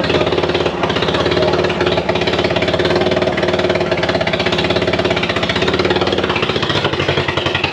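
Mazda B2300 pickup's 2.3-litre four-cylinder engine running roughly with a fast, even pulsing beat. It is running poorly, which the owners put down to it needing more fuel.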